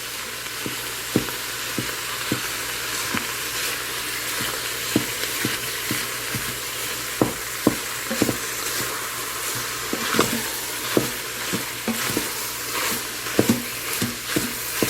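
Ground meat sizzling as it browns in an Instant Pot on sauté, with a steady frying hiss and a utensil knocking and scraping against the pot at irregular short intervals as the meat is mashed apart.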